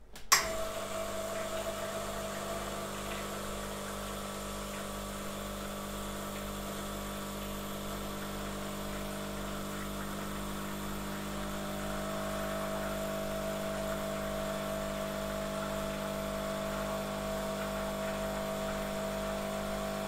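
La Spaziale S1 Mini Vivaldi II espresso machine's vibratory pump switching on with a click and running steadily as it pushes hot water through the brew group, which carries a temperature probe, during a brew-temperature test. The hum gets a little louder about halfway through.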